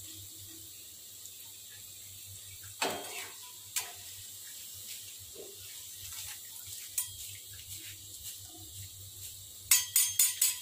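Metal spatula and wire-mesh strainer clinking against a wok while deep-fried taro strips are lifted out of the oil to drain. There are a few single clicks, then a quick run of four or five louder taps near the end.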